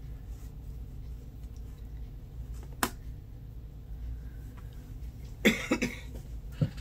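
Handling of resin figures and silicone molds: a single sharp click about three seconds in, as of a hard resin piece set down on a plastic tray, then a short cluster of knocks and rustle near the end.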